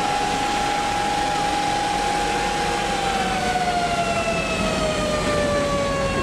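Fire engine siren holding one steady wail, then slowly falling in pitch from about three seconds in, over the running engine.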